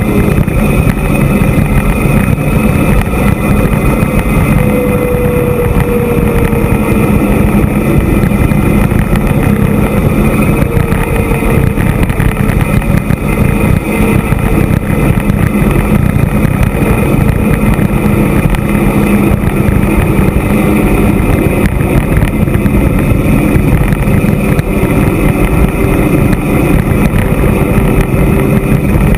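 Steady rush of wind buffeting the camera's microphone as an e-mountain bike descends a paved mountain road at speed. A faint engine hum comes from the motorcycle and cars just ahead.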